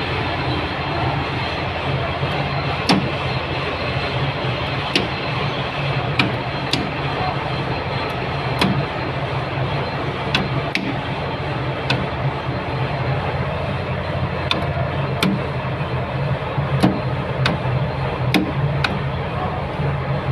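Steady machinery hum and noise, with sharp clicks at irregular intervals, roughly one every second or so.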